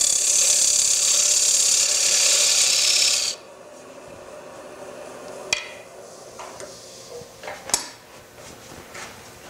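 Square-end scraper cutting into wood spinning on a lathe: a steady hissing scrape that stops abruptly about three seconds in. After it come a few sharp clicks and knocks.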